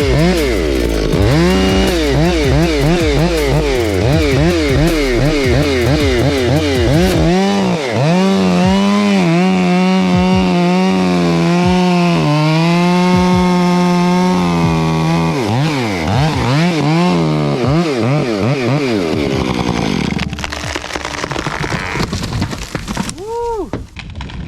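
Chainsaw cutting into a tree, its engine pitch rising and falling as it is throttled in and out of the cut, held steady at full revs for several seconds in the middle. The saw dies down near the end. Background music plays under it.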